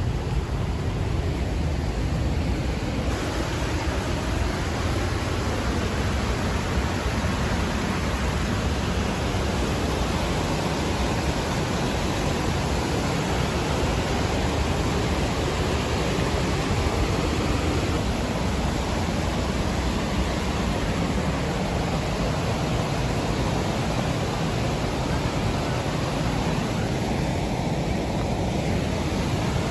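Steady rush of white water pouring through a dam's floodgates and churning in the river below.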